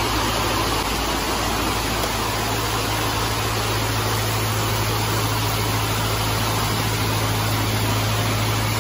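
Heavy rain pouring steadily, mixed with tap water running into a steel sink as hands are washed, over a steady low hum.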